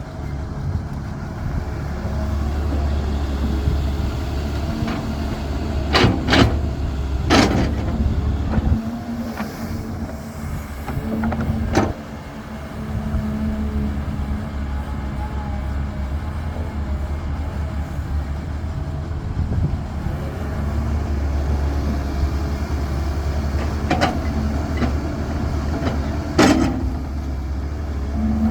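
CAT 320 excavator's diesel engine running steadily, easing off for a few seconds in the middle, with several sharp clanks and bangs: a cluster about six to seven seconds in, one near twelve seconds, and two more near the end.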